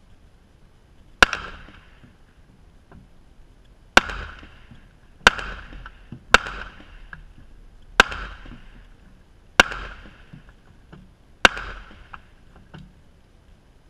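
Seven handgun shots fired at a bullet-resistant fabric blind, one to two seconds apart and unevenly spaced, each sharp crack followed by a short echo.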